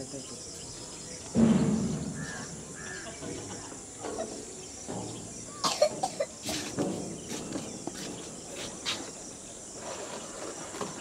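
Open-air ambience with a steady high insect drone. A sudden loud thump comes about a second and a half in and fades over a second, and a few sharp clicks follow around the middle.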